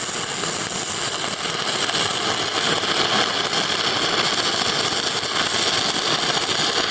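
Shielded metal arc welding with a 6013 electrode: the arc crackles steadily as the rod runs a bead.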